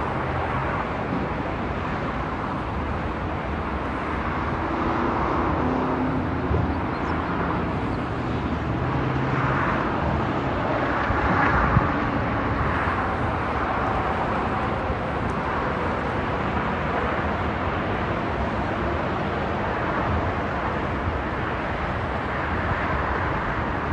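Steady highway traffic noise: a continuous rush of cars and trucks passing, swelling louder for a few seconds about ten seconds in.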